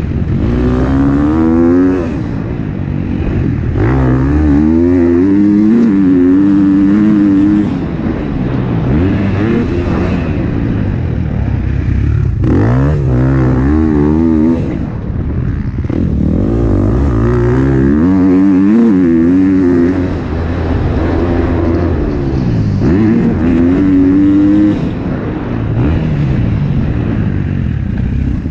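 2021 KTM 250 SX-F's single-cylinder four-stroke engine revving hard and climbing in pitch through the gears, with the throttle closing and reopening every few seconds. Heard from on the bike itself.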